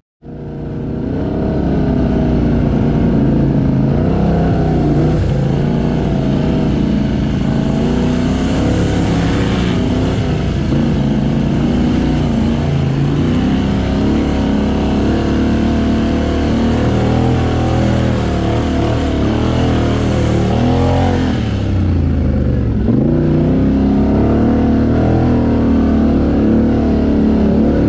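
A quad bike (ATV) engine under way as it is ridden, the revs rising and falling with the throttle. The revs drop off briefly about three-quarters of the way through, then climb again.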